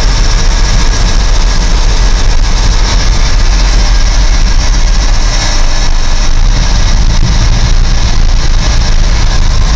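1994 Ford L8000 dump truck's diesel engine running steadily just after a cold start.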